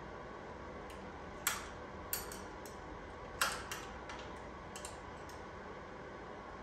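Metal hand tools clinking: a scattered run of short, sharp clicks and clinks from a socket and ratchet being handled, two of them louder than the rest, about a second and a half and three and a half seconds in. A steady low hum sits underneath.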